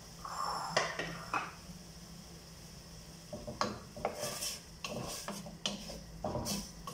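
A wooden spoon stirring and scraping inside a metal cooking pot, with a few sharp knocks against the pot early on and a run of short scraping strokes through the second half. A steady low hum runs underneath.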